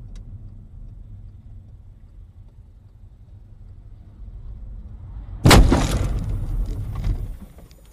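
Low rumble of a car driving on a wet road, heard from inside the cabin. About five and a half seconds in comes a sudden, very loud noisy burst that dies away over about two seconds.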